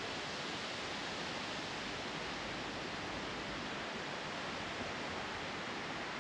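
Steady, even hiss of background noise that does not change, with no bird calls or other distinct sounds.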